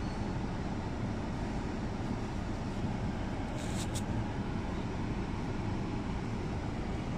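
Steady rush of a Toyota RAV4's climate-control blower pushing air out of the dashboard face vents, with the engine idling underneath; the air now comes from the face vents after the mode-damper servo motor was recalibrated. A brief crackle comes a little past halfway.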